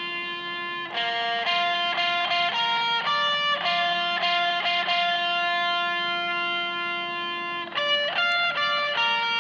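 Background music: a solo electric guitar playing a slow melody. Long held notes alternate with short runs of quicker notes.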